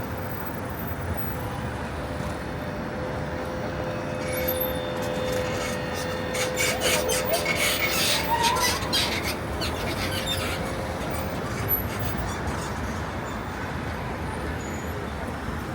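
Street traffic noise, with a steady whine through the first half and a stretch of rapid rattling clicks from about five to ten seconds in.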